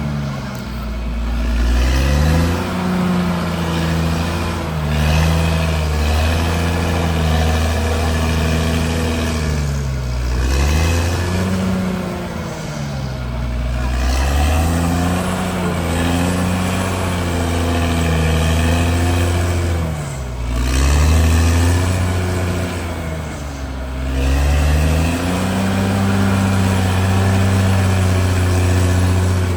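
CAT D6R XL bulldozer's diesel engine running under working load, its pitch repeatedly sagging and recovering as the blade pushes soil, with deeper dips about ten, twenty and twenty-four seconds in.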